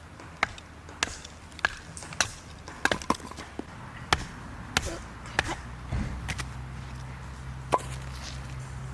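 Chopping: about a dozen sharp, clicky strokes, roughly two a second, pausing briefly before a last stroke near the end. A steady low hum comes in about two-thirds of the way through.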